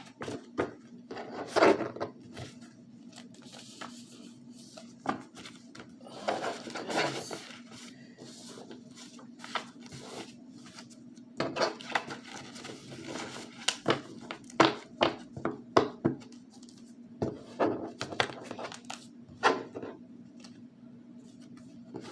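Tarot cards being handled and shuffled: irregular papery slides, flicks and sharp taps of cards on a surface, with a few longer rustling shuffles, over a faint steady hum.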